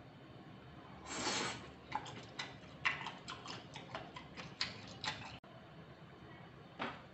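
Chopsticks handling food: a brief rustle, then a run of light, irregular clicks, about two to three a second, for several seconds. Near the end comes a short soft scrape as the chopsticks dig into the saucy squid salad.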